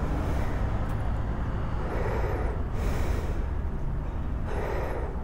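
Motorcycle engine idling with a steady low rumble, and close breathing on the microphone every second or two.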